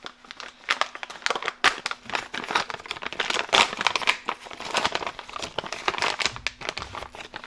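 Compostable stand-up pouch being handled, its film crinkling as the reseal zipper is worked open and shut, with a run of irregular sharp crackles.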